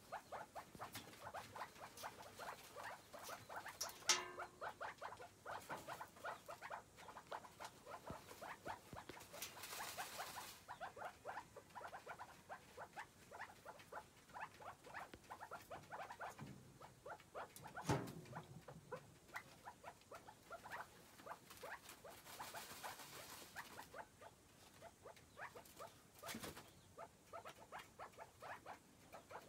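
Chukar partridge and its chicks scratching and dust-bathing in loose dirt: a quiet, steady patter of small scratches. There is a rush of flung dirt about ten seconds in and again around twenty-three seconds in, and a sharper knock about four and eighteen seconds in.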